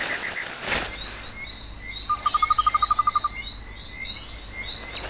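Birds chirping and calling, with a rapid trill of about ten notes a second, lasting just over a second, near the middle.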